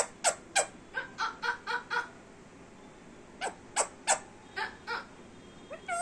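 Indian Ringneck parrot giving runs of short, sharp calls: a quick series in the first two seconds, a pause, then another series around the middle, with one more call near the end.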